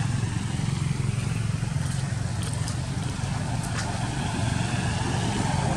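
A motor vehicle engine running steadily, a low hum, with a few faint, brief high clicks about halfway through.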